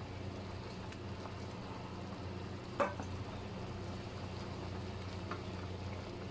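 Metal ladle stirring a pot of simmering soup in an aluminium pressure-cooker pot, with one sharp clink of the ladle against the pot about three seconds in and a few lighter taps. A steady low hum runs underneath.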